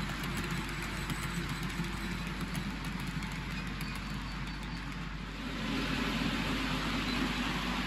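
OO gauge model train running on its track: the Cavalex TEA tank wagons roll with a steady rumble and light, quick wheel clicks over the rail joints. A little over five seconds in, the rolling noise gets louder and fuller.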